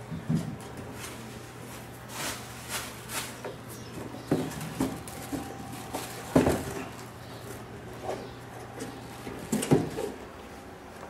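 Plastic wrapping rustling and crinkling inside a cardboard box as it is unpacked by hand, with the box knocking and scraping on the table; the two loudest knocks come about six and a half and nearly ten seconds in. A faint steady hum runs underneath.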